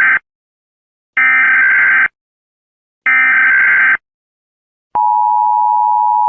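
United States Emergency Alert System alarm. First come the harsh digital bursts of the SAME data header, each about a second long with a second's silence between them: a brief tail, then two more. About five seconds in, the steady two-tone attention signal starts.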